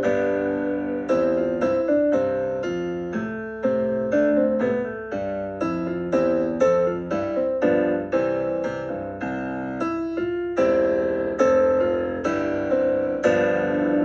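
Solo piano music: a gentle melody of struck notes and chords, about two or three a second, each ringing and fading away.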